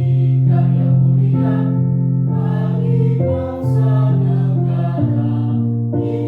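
Elementary school children's choir singing in unison over a sustained instrumental accompaniment.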